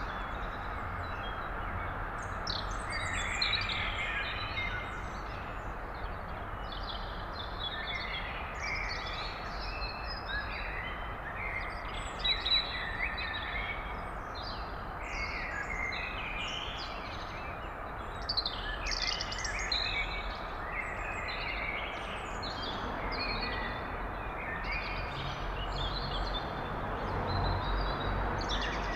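Blackbird singing, phrase after phrase of short warbling notes, over a steady low hum of town background noise.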